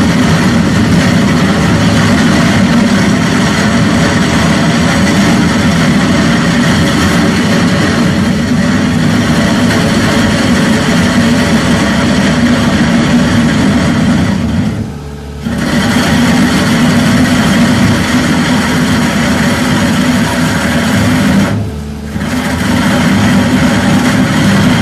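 Skid-steer loader driving a trench-cutting attachment through asphalt: a loud, steady engine and grinding noise as the cutter chews a slot in the road surface. It lets up briefly twice, about two-thirds of the way in and again near the end.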